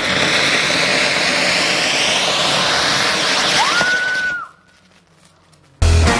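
Flowerpot fireworks (ground fountains) on a table fan spraying sparks: a loud steady hiss whose pitch slowly falls, with a brief whistle near its end. The hiss cuts off suddenly about four and a half seconds in, and after a short quiet, guitar music starts near the end.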